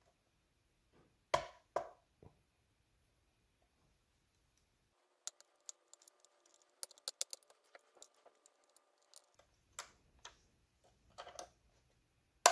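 Light clicks and taps of a plastic spudger prying a speaker cable connector from its socket on a Microsoft Surface Pro 4 motherboard. Two sharper clicks come early, a quick run of faint ticks in the middle, and a few more clicks near the end.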